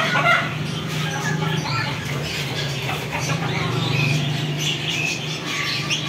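Chickens clucking, with scattered short bird calls, over a steady low hum.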